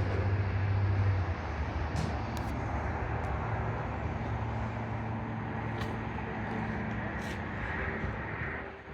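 Steady low hum of a heavy vehicle's engine running, easing slightly about a second in, with a few short sharp clicks.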